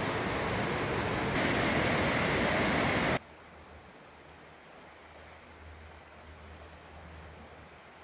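Loud, steady rush of fast-flowing river water, which cuts off suddenly about three seconds in to a much quieter steady hiss with a faint low rumble.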